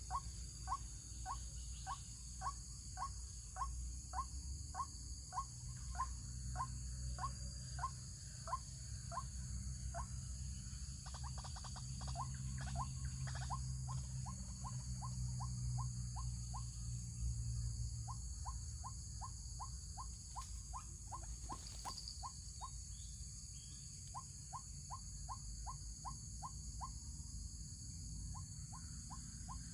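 White-breasted waterhen (ruak-ruak) calls: short, sharp notes repeated about two a second in runs with brief breaks, over a steady low rumble.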